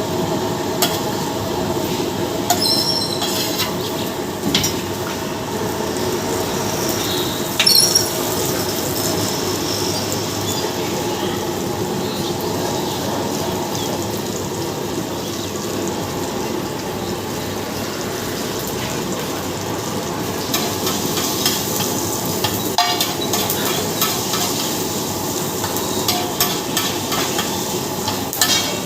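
Egg dish sizzling as it fries in a pan, with a metal spatula stirring, scraping and tapping against the pan. The clicks come in a loud cluster about a third of the way in and grow frequent near the end.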